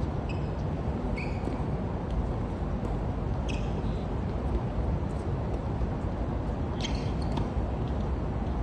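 Steady low outdoor background rumble at a tennis court, with a few short, high squeaks and ticks scattered through; the strongest comes about seven seconds in.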